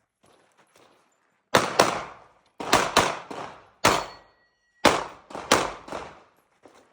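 A string of 9 mm pistol shots from a Glock 47, about nine in all, several fired in quick pairs, each followed by a short echo. The first shot comes about a second and a half in.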